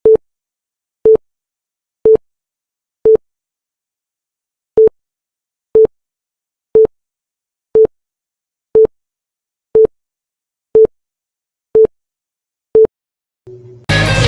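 Countdown timer beeping: a short electronic beep at one pitch once a second, thirteen in all, with one beat skipped about four seconds in. Loud music starts just before the end.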